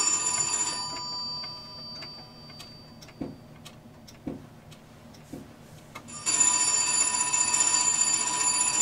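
Telephone ringing: one ring stops about a second in, then after a quiet gap with a few faint clicks and soft knocks, a second ring starts about six seconds in and is still going at the end.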